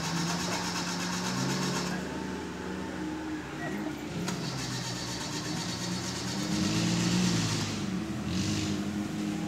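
Off-road Jeep-style 4x4's engine running at low revs as it labours on a steep dirt climb, revving up about seven seconds in. A brief hiss follows near the end.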